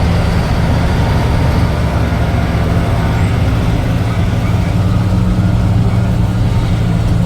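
Steady engine drone and road noise heard from inside a vehicle's cabin, a constant low hum with no change in pitch.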